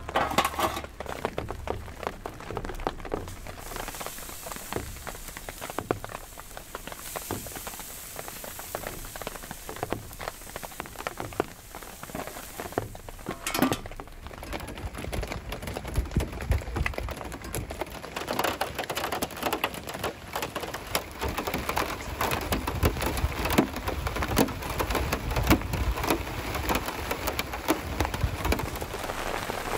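Steady rain, many dense drops striking a surface, growing louder and heavier about halfway through.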